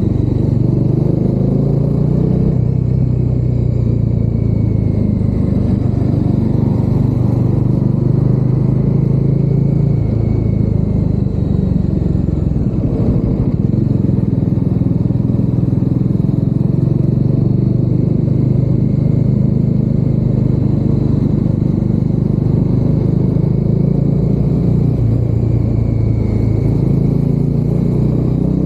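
Bajaj Dominar 400's single-cylinder engine and exhaust running under way, heard from inside the rider's helmet. The note holds mostly steady, with shifts in pitch as the throttle and gears change, notably about halfway through and near the end.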